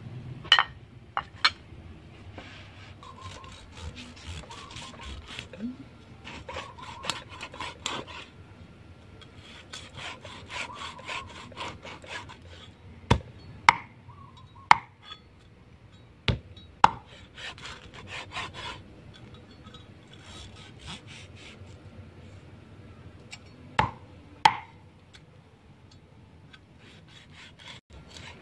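Cleaver cutting crisp grilled pig head on a wooden chopping board. Sharp knocks of the blade striking the board, about ten of them and some in quick pairs, come between stretches of crackly sawing strokes through the crisp skin.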